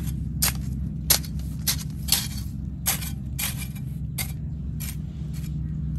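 A hoe chopping and scraping into dry, crumbly soil in a run of short, uneven strokes, about two a second, pulling earth back over fertilizer spread around a young tree.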